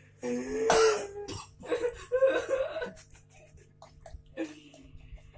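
A person coughing in repeated hard fits: a long loud cough near the start, two more about two seconds in, and a shorter one near the end, over a low steady hum.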